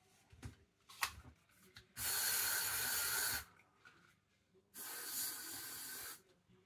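Aerosol spray can hissing in two long bursts of about a second and a half each, the second a little quieter, after a few small knocks of things being handled at the shelf.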